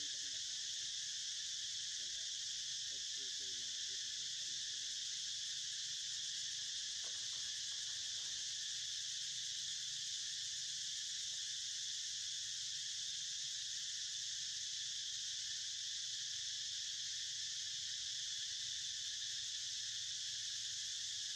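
Outdoor insect chorus: a steady, unbroken high-pitched buzzing.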